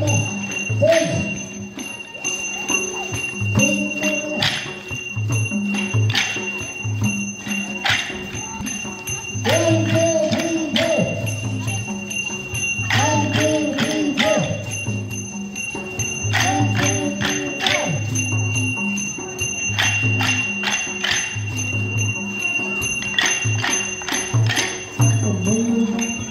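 Drum-and-cymbal dance music: a drum beats a steady repeating rhythm, about two beats a second, under sharp metallic clashes, with voices calling out over it now and then.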